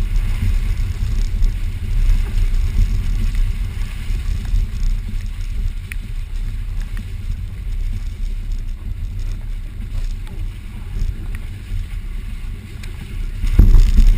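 Off-road vehicle driving on a wet trail: a steady, deep rumble, with a louder thump just before the end.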